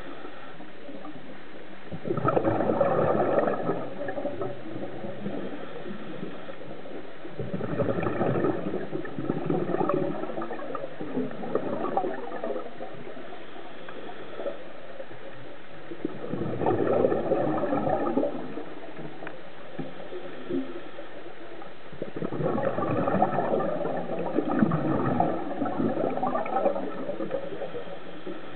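A scuba diver's exhaled air bubbling out of the regulator, heard underwater: four bursts of gurgling bubbles, one every five or six seconds, each lasting a few seconds, with a steady low hiss between them.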